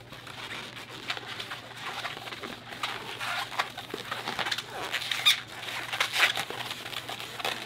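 Inflated latex 260 modelling balloon squeaking and rubbing under the hands as it is twisted into bubbles and its seams locked together, a continuous run of short squeaks that is busiest in the second half.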